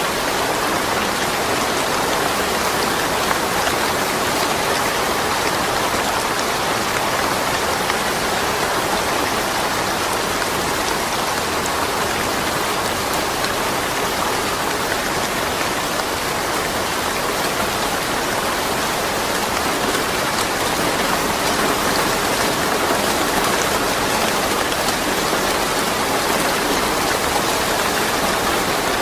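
Steady rain falling, an even hiss of many drops with no thunder.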